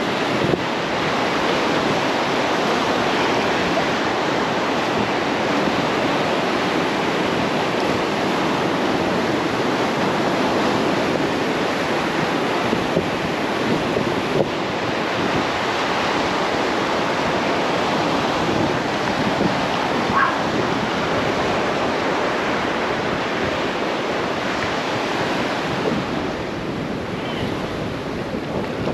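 Ocean surf washing and sloshing around pier pilings close by, with wind on the microphone.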